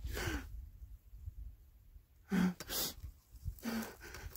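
A man crying: sharp gasping breaths and sniffs with short broken sobs, three bursts in all, the loudest about two and a half seconds in.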